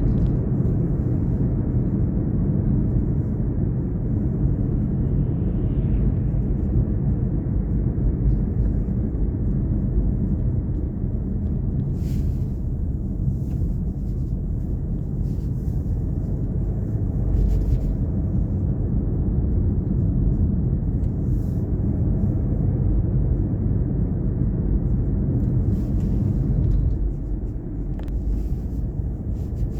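Car driving along a road: a steady low rumble of engine and tyres, with a few brief knocks or clicks.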